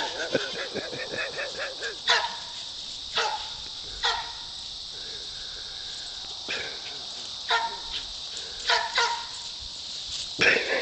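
Poodle barking in short, sharp single barks every second or so as it herds goats, with a quick pulsing call in the first second.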